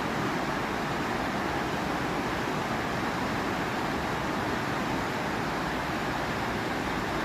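Waterfall: a steady rush of falling water that doesn't change.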